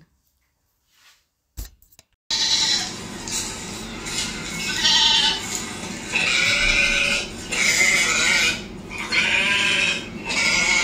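Sheep bleating, a run of loud calls that cut in abruptly about two seconds in and follow one another every second or so over background noise.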